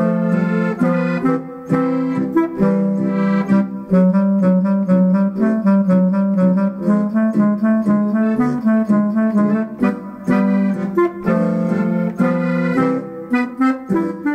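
Bavarian Ländler tune played on an accordion fitted with a Limex MIDI system, the melody voiced as a deep clarinet over a helicon-style bass and guitar-sound chords. Near the end the notes turn short and separated.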